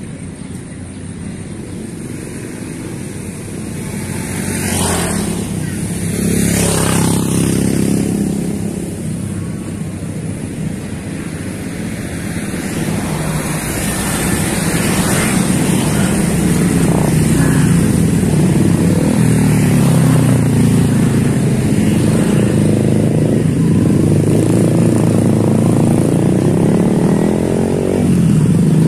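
Motorcycle engines running and passing on a road, with swells as bikes go by in the first several seconds. The engine hum grows louder and steadier in the second half.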